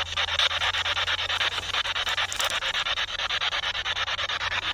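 Spirit box, a radio that sweeps rapidly through stations, scanning: hissing static chopped into a rapid, even stutter.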